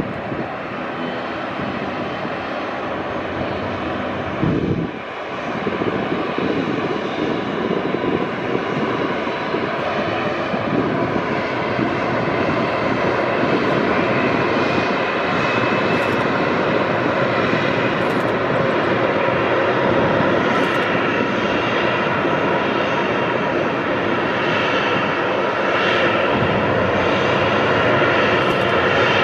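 Boeing 737-800's CFM56-7B jet engines running: a steady rushing noise with faint whining tones, growing gradually louder.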